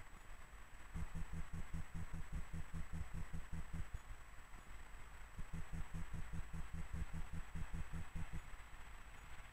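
Freight train hauled by an electric locomotive approaching in the distance: a faint low rumble that swells and fades twice, over a steady hiss.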